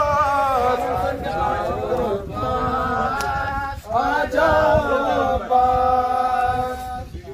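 Male voice chanting a nauha, a Shia mourning lament, amplified through a handheld microphone, in long, wavering held notes with short breaks for breath.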